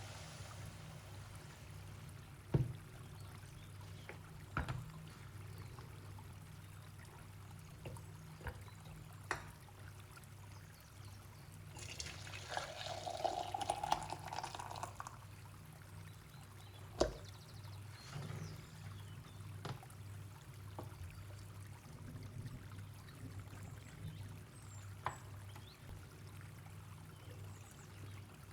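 Liquid poured into a container for about three seconds near the middle, its pitch rising as the container fills. Scattered sharp knocks and clinks, like utensils set down, and a steady low hum fill the rest.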